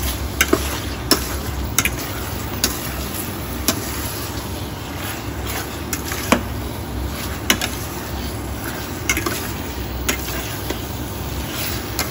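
Chicken pieces in a dark soy and ginger sauce sizzling in a stainless steel pan, with a metal spatula stirring and clinking sharply against the pan at irregular moments.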